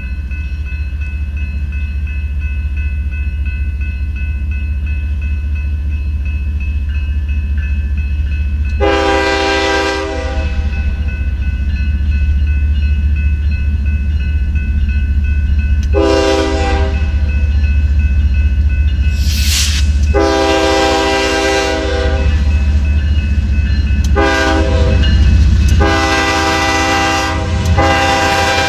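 BNSF GE ES44AC locomotive's air horn sounding for a grade crossing: five blasts, the fourth short and the last one long. Under it runs the steady low rumble of the approaching diesel locomotives.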